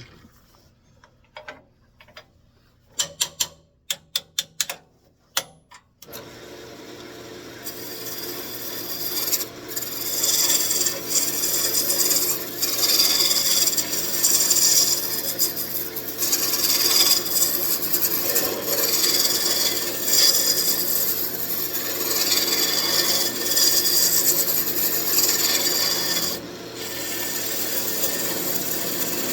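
A few sharp clicks, then about six seconds in a wood lathe starts running and a turning tool cuts into the spinning wood: a continuous scraping hiss over the motor's steady hum, swelling and easing with each pass of the tool.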